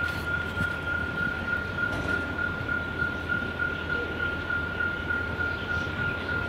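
Railway level-crossing bells ringing steadily as one high, pulsing tone, over a low, even rumble of an approaching train.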